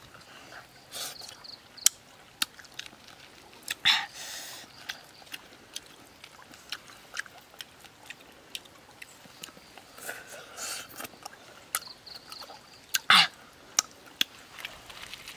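Close-up eating sounds: a person eating grilled fish with chili sauce by hand, with irregular wet lip smacks and mouth clicks and a few louder mouth noises.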